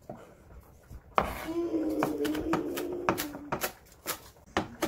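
Chef's knife chopping green onion on a wooden cutting board: a string of sharp, irregular chops. A steady humming tone is held for about two seconds, starting about a second in.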